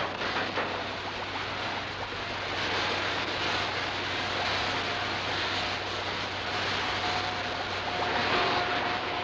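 Electrical crackling and hissing from the high-voltage spark apparatus of a film laboratory set, over a low steady hum, swelling louder about eight seconds in as an arc leaps between the metal spheres.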